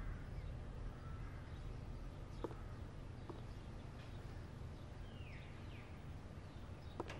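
Quiet outdoor ambience through an open doorway: a low steady rumble, two faint knocks, and a few short falling bird chirps about five seconds in. Near the end a click as the wooden front door starts to swing shut.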